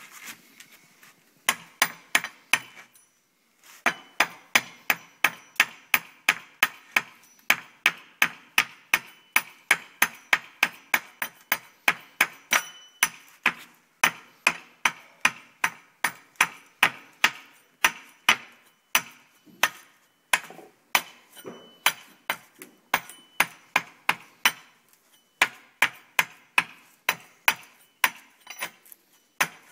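A small steel hatchet chopping repeatedly into an upright bamboo stave, about two to three quick knocks a second, each with a short ringing tone. There is a short pause near the start and brief breaks later on.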